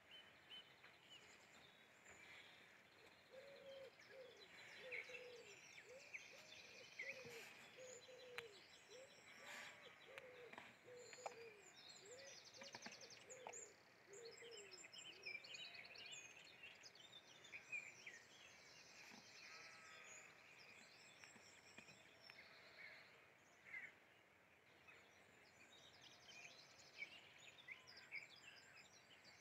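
Faint birdsong from many small birds chirping and trilling. For about ten seconds in the first half, a lower call repeats about twice a second.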